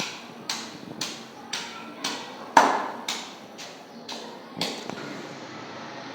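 Sharp ticks evenly spaced about two a second, ten in all, with the loudest near the middle. They stop shortly before the end, and a steady hiss follows.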